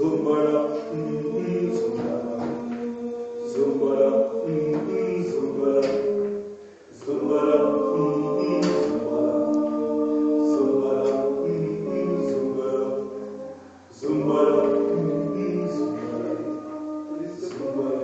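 A choir singing together in several parts, in long held phrases with short breaks about 7 and 14 seconds in.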